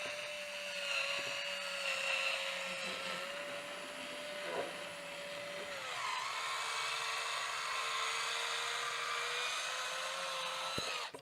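Rechargeable cordless electric corkscrew's motor whining steadily as it drives its screw into a wine cork and draws it out. The pitch drops about six seconds in and holds lower, and the motor cuts off abruptly near the end.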